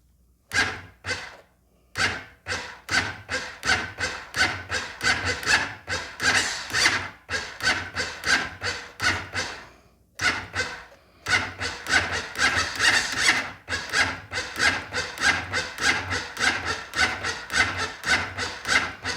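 Honda Foreman ATV's electric starter cranking its single-cylinder engine slowly and laboriously, with a rhythmic rasping of about two to three strokes a second. It cranks in two long attempts with brief pauses between them. The owner believes the starter is dragging.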